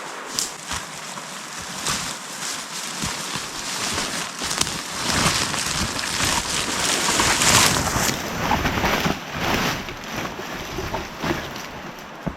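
Dry leaves and undergrowth rustling and crackling, with scattered snaps and knocks, loudest about five to eight seconds in.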